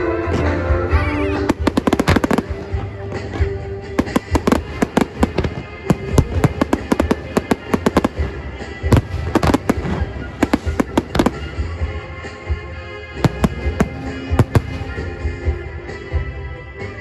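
Aerial firework shells bursting over a music soundtrack, starting about a second and a half in, with clusters of rapid bangs and crackles from crackling stars.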